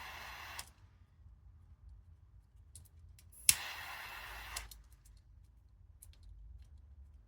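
A gas torch lighter hissing as it melts the end of a nylon starter cord. The hiss stops shortly after the start, then the lighter clicks on again about three and a half seconds in and hisses for about a second. A few faint clicks follow.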